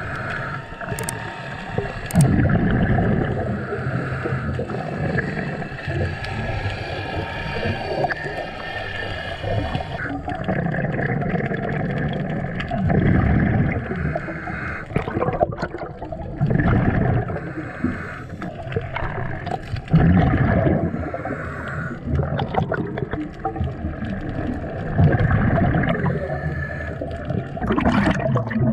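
Scuba diver breathing underwater through a regulator, with exhaled bubbles gurgling out in bursts every few seconds.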